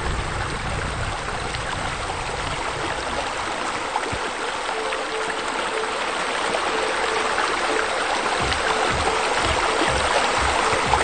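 Steady splashing of falling water from pool fountain jets and a rain curtain, growing a little louder in the second half.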